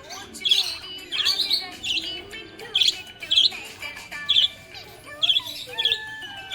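Budgerigars chirping in a string of short, bright chirps.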